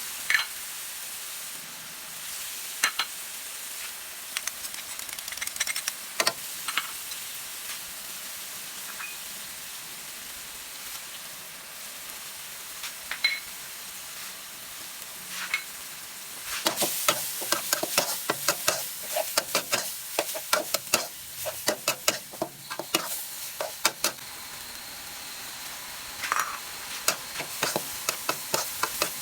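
Seafood and chili paste sizzling in a hot pan while a spatula stirs, with scattered clinks at first and a busy run of rapid scraping and clattering against the pan through the second half.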